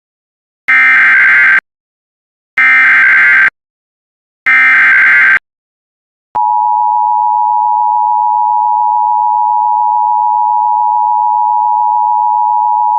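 Emergency Alert System header: three short bursts of screeching digital data about a second apart, then the long steady EAS attention tone starts a second later, signalling that a new warning is about to be read.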